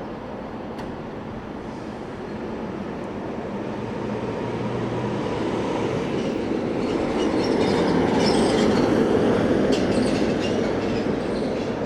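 A vehicle passing on the street, growing louder to a peak about eight to ten seconds in, with brief rattles and squeaks near the peak.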